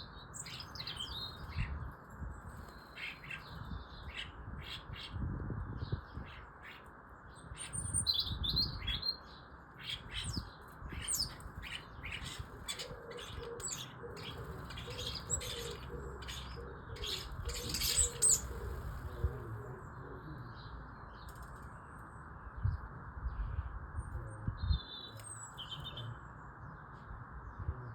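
Starlings chattering at a feeder: a constant run of short clicks, chirps and whistles, over a steady hiss.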